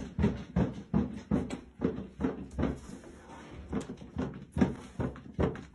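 A cat inside a hooded litter box knocking again and again against its swinging flap door: a fast, even run of thuds, about three a second.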